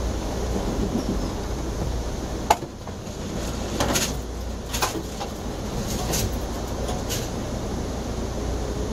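Passenger train rolling along, heard from inside the car as a steady low rumble. A sharp knock comes about two and a half seconds in, followed by a few short clatters between four and seven seconds in.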